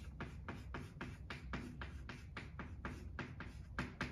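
Chalk writing on a blackboard: a rapid run of short taps and scratches from the chalk, about five strokes a second.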